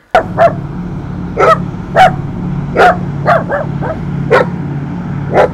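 A dog barking, about ten sharp barks at uneven intervals, over a steady low engine-like drone.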